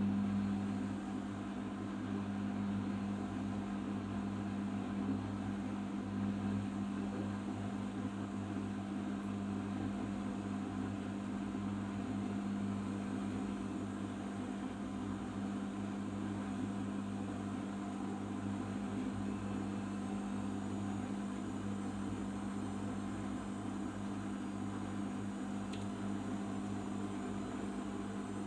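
Arçelik 5083 washing machine running its final spin, a steady motor hum at constant speed.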